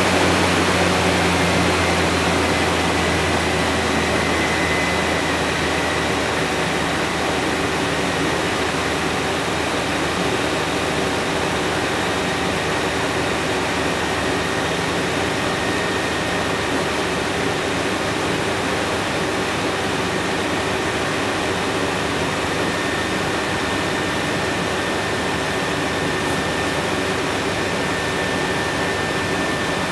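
Haas CNC lathe turning a bicycle front hub: the spindle runs steadily while the tool cuts, a steady whirring noise with a faint high whine.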